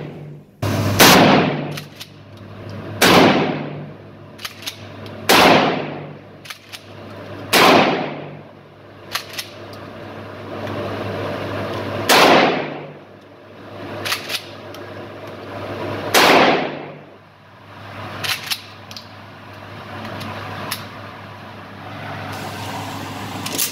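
Pump-action shotgun firing Shooter-brand shells, about seven loud shots mostly two seconds apart with a longer pause after the fourth. Each shot rings off the walls of an indoor range, and between shots come the shorter clacks of the pump being worked.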